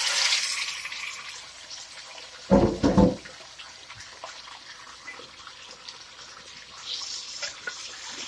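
Pieces of mutton sizzling in hot oil in a deep pot, loud at first and settling to a steady quieter sizzle that rises again near the end. Two dull, heavy thumps come about two and a half seconds in.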